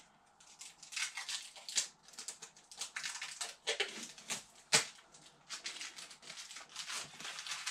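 Packaging crinkling and rustling as it is handled, in quick irregular crackles, with the sharpest crackle near five seconds in.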